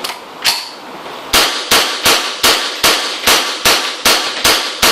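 Ruger 10/22 semi-automatic .22LR rifle fired in rapid succession: one shot about half a second in, then a fast, even string of about ten sharp shots, roughly two and a half a second.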